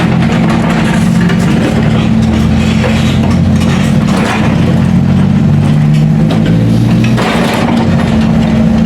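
Heavy road-construction machinery running, a diesel engine holding a steady, loud drone whose pitch shifts slightly as the load changes, with some clattering over it.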